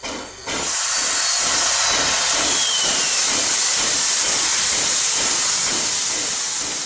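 A loud, steady hiss that starts suddenly about half a second in and tapers off near the end, with a faint falling whistle in the middle.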